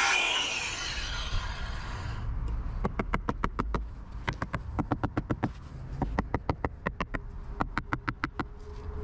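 Circular saw noise fading out over the first two seconds, then a small steel-headed sledgehammer striking wooden formwork braces in quick runs of blows, several a second.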